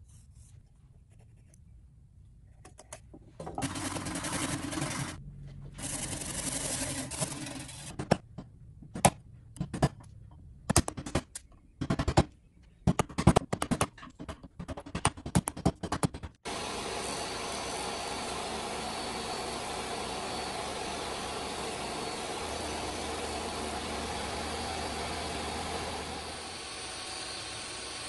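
Hand work on a pine block clamped in a vise: two short bursts of scraping, then a string of sharp knocks and cracks as waste is chiseled and split out. About two-thirds of the way through, a table saw is suddenly heard running steadily, its sound dropping slightly near the end.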